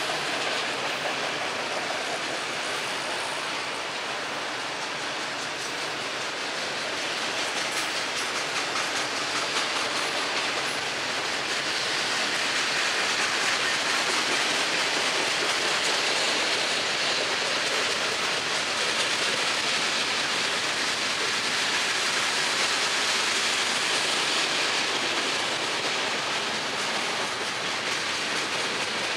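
Freight cars of a long train rolling past on the rails, a steady rush of wheel and rail noise that grows a little louder about seven seconds in.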